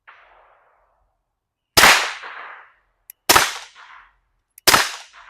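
Three suppressed pistol shots from a 9mm FN 509 Midsize Tactical fitted with a CGS Mod 9 suppressor, about a second and a half apart. Each is a sharp crack with a short echoing tail.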